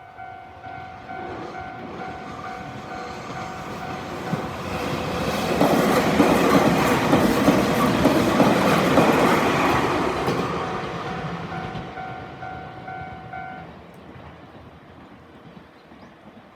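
Japanese railway level-crossing warning bell ringing in a steady repeating electronic ding. A train passes through, and its wheels on the rails build up, drown the bell out, then fade. The bell is heard again briefly after the train and stops a few seconds before the end.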